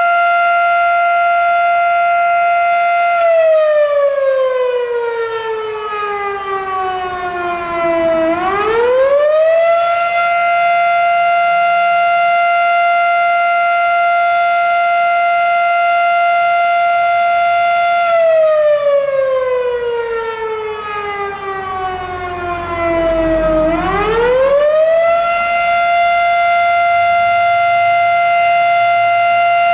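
Fire department siren sounding a fire call: a loud steady wail that twice winds down slowly in pitch, then quickly climbs back up to full tone.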